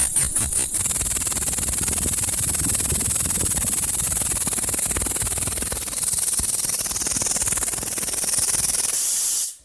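Small three-piston radial engine running on compressed air. It starts with exhaust puffs at about five a second, then the puffs blend into a steady air hiss with a low rattle. The sound cuts off suddenly near the end.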